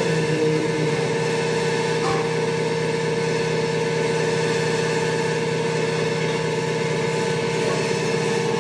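A motor or engine running steadily, an unchanging drone with a constant hum.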